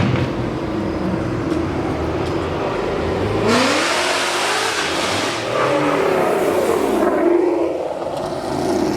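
Cars accelerating away, engine pitch rising as they rev through the gears, with a loud rushing exhaust as one passes close a few seconds in.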